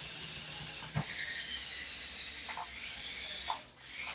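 Faint steady hiss with a faint wavering whine from the toy RC dinosaur truck's small electric motor, and a single knock about a second in.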